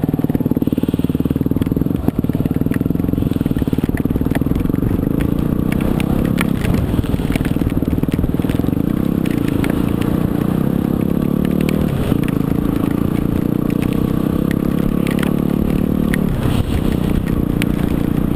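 Yamaha WR250R's 250 cc single-cylinder four-stroke engine running at low speed as the bike rolls over wet gravel, the revs dipping and rising a few times, with scattered clicks.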